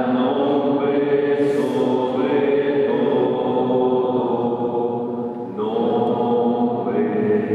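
Voices singing a slow Catholic hymn of praise, holding long sustained notes; a new phrase starts about five and a half seconds in.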